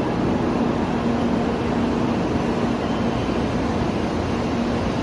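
Steady running noise inside a Shinkansen passenger car at speed, an even rush with a faint low hum running through it.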